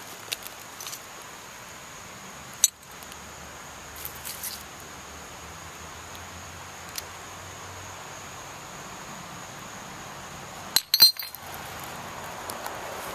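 Sharp clinks of hard objects: a single clink about three seconds in, then a quick cluster of clinks near eleven seconds, the loudest sound here. They sit over a faint steady high whine and low hiss, with a brief soft rustle around four seconds.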